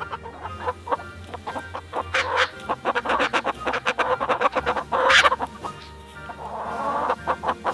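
Chickens clucking in quick, busy calls, with a louder call about five seconds in, over soft background music.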